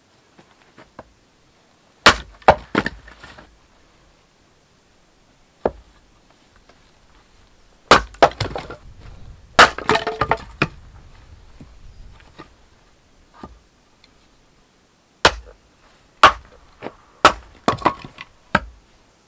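Hand-forged felling axe splitting small firewood rounds on a chopping block: sharp chops and wood cracking apart, with split pieces knocking down. The strikes come in three groups, about 2, 8 to 10 and 15 to 18 seconds in.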